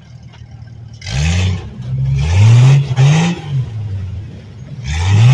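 Off-road rig's inline-six engine idling, then revved hard three times, its pitch sweeping up and falling back with each blip of the throttle as the driver pumps it to climb the rocks.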